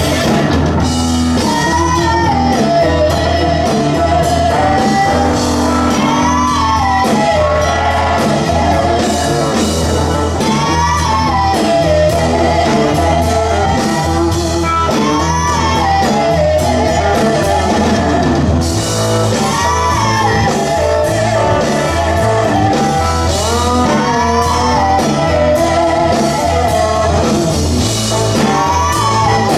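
Live blues-rock band playing, with two women singing into microphones over electric guitar, bass and drums.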